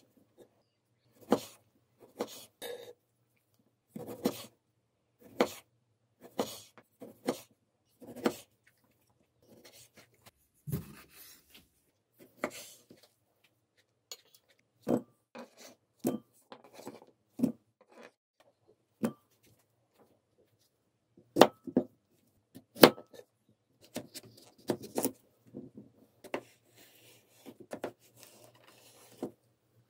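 Kitchen knife cutting through cherry tomatoes and knocking on a wooden cutting board: sharp, irregular taps roughly one to two seconds apart, with a short pause in the middle. Near the end, softer rubbing and scraping as the knife slices a cucumber lengthwise between taps.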